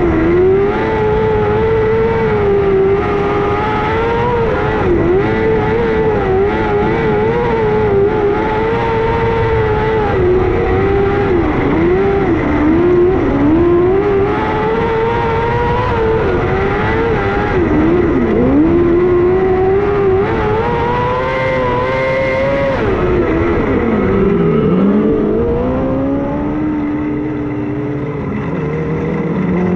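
Non-wing micro sprint car's 600cc motorcycle engine at racing revs, its pitch dipping briefly as the driver lifts for each turn and rising again down the straights. About three-quarters of the way through, the revs drop sharply and the engine runs slowly at low revs while the car slows for a caution before the restart, then it picks up again near the end.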